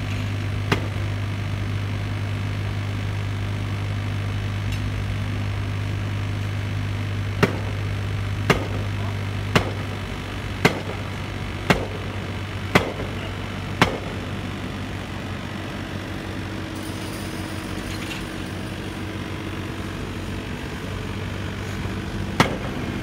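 Kubota mini excavator's diesel engine running steadily. Over it come sharp knocks: one near the start, seven evenly about a second apart in the middle, and one more near the end.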